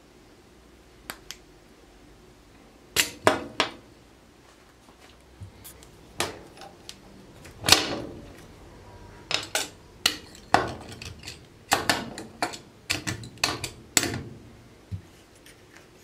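Sharp metallic clicks and knocks of a chrome metal washing-machine ball valve being handled and worked at the wall water fitting, coming in irregular clusters, loudest about eight seconds in.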